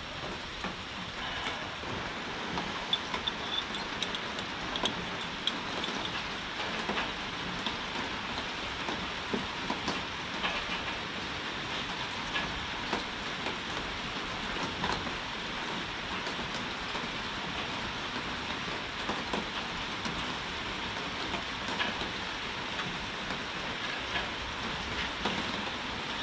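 Heavy rain falling steadily: a continuous hiss with many scattered drip taps throughout.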